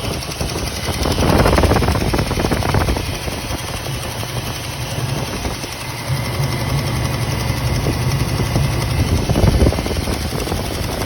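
1967 Ford Mustang's 289 cubic-inch small-block V8 running at idle with a steady low burble, swelling louder twice with a brief rev, about a second in and again near the end.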